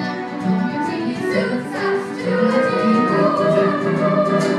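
Stage cast singing a musical-theatre song together, with instrumental accompaniment.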